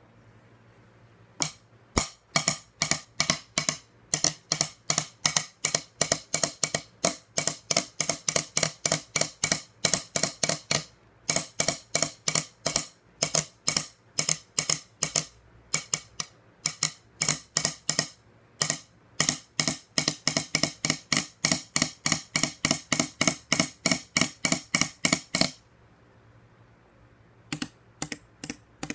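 A wooden drumstick drummed on a tabletop: sharp, clicky taps several a second in a drumming pattern, with short breaks. The taps stop about 25 seconds in and start again near the end.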